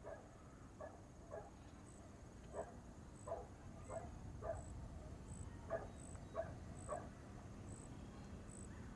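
A dog barking over and over in short single barks, about ten of them at uneven spacing, over a faint outdoor background. A faint high chirp repeats about twice a second behind the barks.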